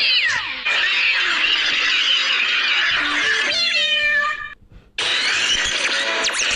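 Cartoon cat yowling and screeching loudly, with a rising and falling wail at first. A short run of falling notes follows, then a brief gap, and then music starts.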